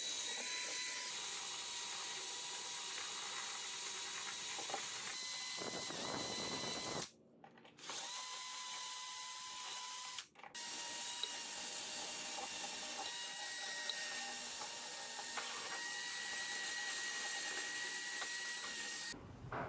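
A power-driven wire brush is spinning against an old Craftsman vise, scrubbing overspray paint off the metal. The motor whines steadily under a dense scratching hiss, stopping briefly about a third of the way in and again a few seconds later.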